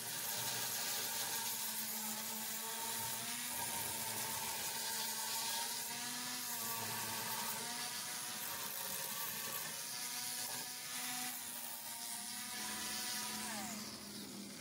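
Electric angle grinder running steadily while grinding rust off an iron railing, a whir over a gritty hiss. Near the end it is switched off and winds down, its pitch falling.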